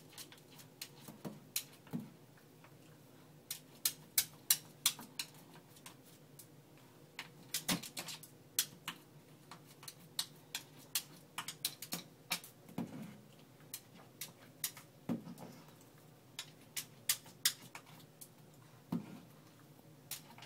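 Cavalier King Charles spaniel puppy's claws clicking and tapping against a mirror and a tile floor as it paws at its reflection, in irregular clusters of sharp clicks with a few soft thumps.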